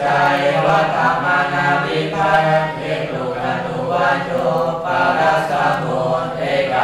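A group of voices reciting Pali grammatical forms in unison, a rote conjugation drill delivered as an even, sing-song chant with no pauses.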